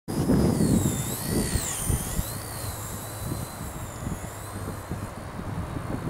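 Blade nCPx micro RC helicopter's electric motor and rotor whine, high-pitched and wavering up and down in pitch as it works against gusts, fading as it climbs away. Wind buffets the microphone with a gusty low rumble, strongest in the first second or so.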